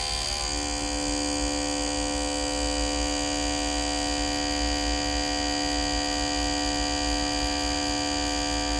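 Fuel-injector test bench running a set of Mitsubishi Starion fuel injectors at a stepped-up setting, spraying into graduated cylinders with a steady electric buzz. A stronger low tone joins the buzz about half a second in.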